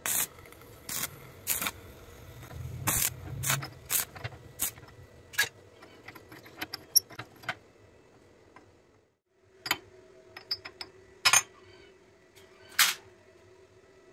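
Sharp, irregular clinks and knocks of small steel parts (nuts, bolt, pipe and sprockets) being handled and set against one another, over a faint steady hum. The sounds stop briefly about nine seconds in, then a few more knocks follow.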